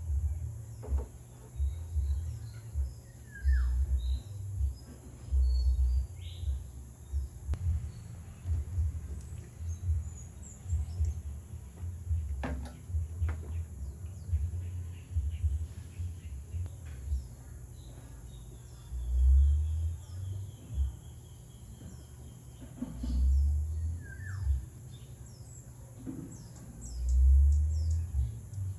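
Small birds chirping and calling in short scattered notes, over irregular low rumbling gusts of wind buffeting the microphone; the wind gusts are the loudest sound.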